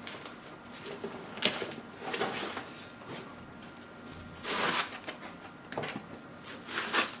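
Plastic bags and packaging from a PC power supply box being handled: short rustles and a few light knocks, the longest rustle about halfway through.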